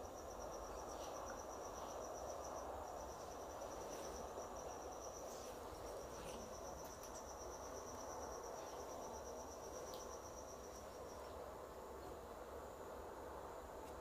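A faint, high, fast-pulsing trill that breaks off twice briefly and stops about eleven seconds in. Beneath it is a quiet, steady rush of road noise.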